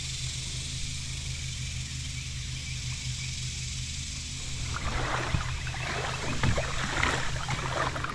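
Steady low hum of a small motor, with water splashing over it from about five seconds in. Both cut off suddenly at the end.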